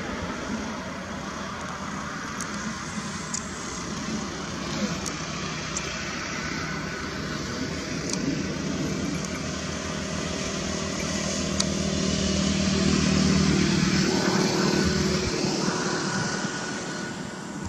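Road vehicle engines running along a highway. One vehicle grows louder to a peak about two-thirds of the way through and then fades away.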